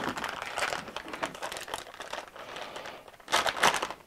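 Plastic bag crinkling as it is handled and opened, with a louder burst of crinkling about three and a half seconds in.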